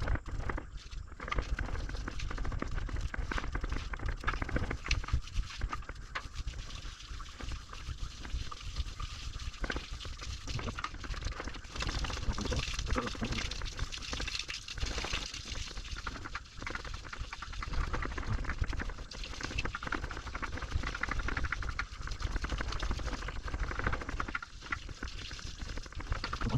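Water spraying and splashing in an uneven hiss, over a steady low rumble.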